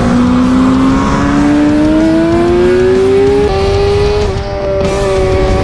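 Suzuki GSX-R600's inline-four engine at high revs on the track, its pitch rising steadily for over three seconds and then levelling off.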